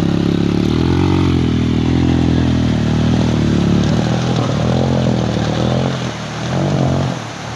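Motorcycle engine revving up and down under load while pushing through deep flood water, easing off near the end.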